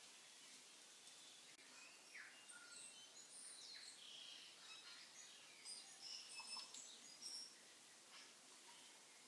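Near silence: faint room hiss with scattered faint high chirps, like birds heard from a distance.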